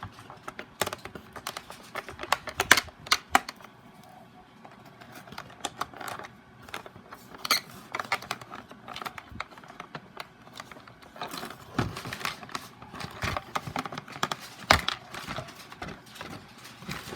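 Irregular clicks, taps and light rustling of hands handling an unboxed model horse and its packaging.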